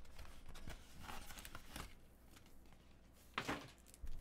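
Faint rustling of a paper wrapper and a clear plastic card sleeve being handled as a graded card slab is pulled out by hand, with one brief louder rustle about three and a half seconds in.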